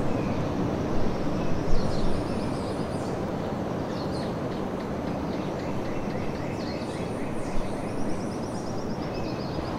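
Steady rushing roar of ocean surf on a pebble beach, with birds chirping and giving fast trills above it.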